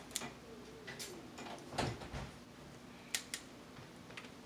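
Snow crab leg shell being cracked and picked apart by hand: a few short, sharp cracks and clicks, the loudest a little under two seconds in, then two quick clicks close together about three seconds in.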